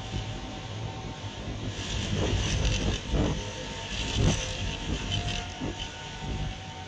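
Violent tornadic storm wind, very loud, rumbling and buffeting the microphone high on a tower. Gusts swell about two and four seconds in, with several hard thumps of wind against the mic.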